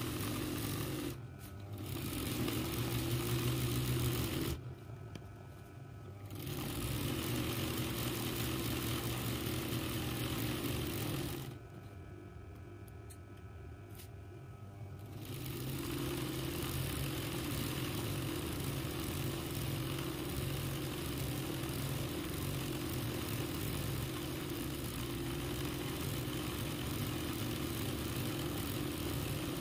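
RANEW 130 motor-driven zigzag sewing machine running steadily as it stitches free-motion embroidery on silk. The running breaks off three times in the first half: briefly about a second in, for under two seconds around five seconds in, and for about four seconds near twelve seconds in. After that it runs without a break.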